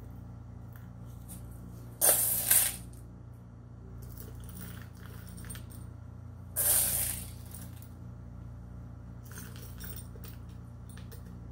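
Silver shot pellets dropped by the handful into the shot basket around the silver anode, clinking and rattling in two short pours about four seconds apart, then a few light clinks as the pellets are pushed into place.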